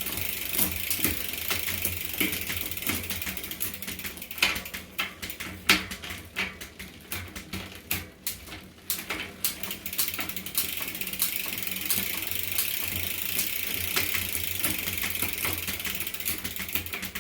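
Giant Trance 3 mountain bike drivetrain turned by hand to spread fresh chain lube over the cassette cogs: the chain runs over the cogs while the rear hub's pawls ratchet, with a run of sharp clicks and knocks in the middle.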